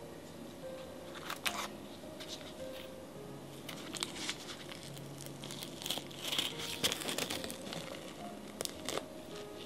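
Handling noise: crinkling and rustling with scattered sharp clicks, busiest about six to seven seconds in.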